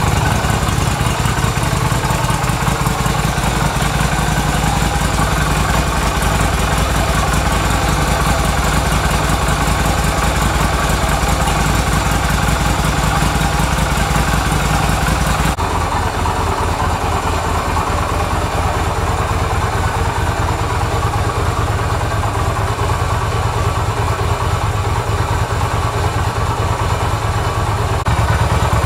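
Yamaha Virago 250's air-cooled V-twin engine idling steadily. The tone shifts abruptly about halfway through and again near the end.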